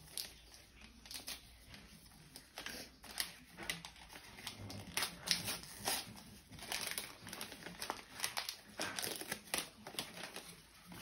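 Gift wrapping paper crinkling and tearing as a small present is unwrapped by hand, in irregular rustles and crackles that get busier about three seconds in.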